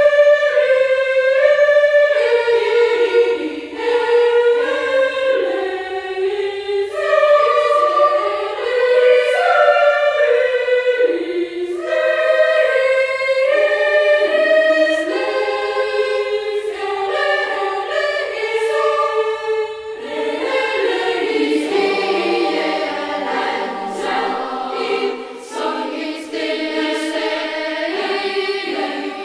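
A choir singing slow, held chords as background music, with lower voices joining about two-thirds of the way in.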